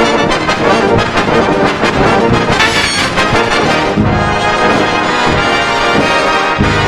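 Orchestral cartoon score led by brass, trombones and trumpets playing a busy passage of quick notes, with the whole soundtrack pitch-shifted in the 'G Major' edit style.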